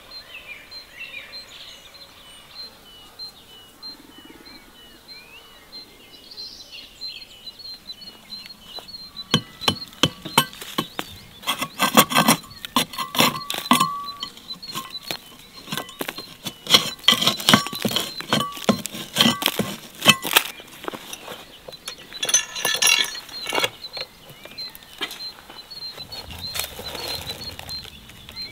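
Steel cleaver tapping and chipping at the baked clay crust sealed around a cooking pot, a quick run of sharp knocks and clinks starting about nine seconds in and dying away near the end. A small bird calls over and over throughout.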